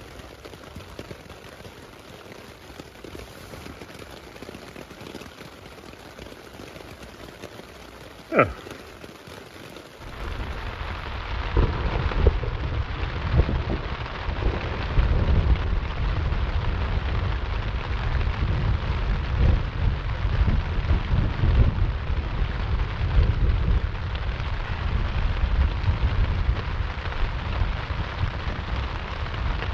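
Light rain at first, then from about ten seconds in heavy rain drumming on the tent fabric of a Seek Outside Cimarron Light shelter, with thunder rumbling low underneath. A single sharp snap sounds about eight seconds in.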